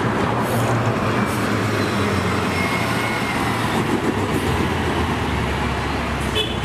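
Vehicle driving sound effect: a steady, loud rumbling noise with a low engine hum, cutting in and out abruptly.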